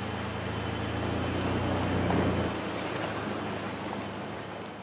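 A passing vehicle's low engine hum and rolling rumble, swelling to its loudest about two seconds in, then dropping away and fading.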